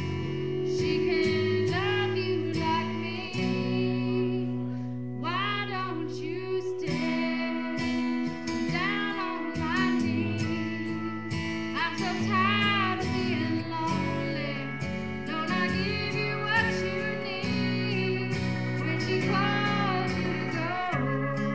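A song sung by a woman's voice over guitar accompaniment.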